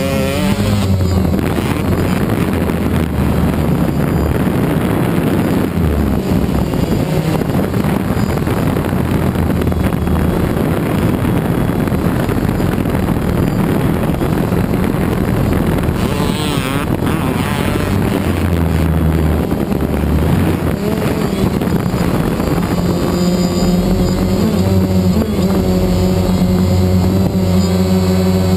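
DJI Phantom quadcopter's motors and propellers humming loud and steady, with the pitch shifting as it manoeuvres and wind across the microphone. A dirt bike engine revs in and out over the hum, rising and falling near the end.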